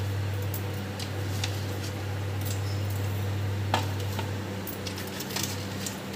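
Steady low hum, with a few faint light clicks over it and one sharper click a little under four seconds in.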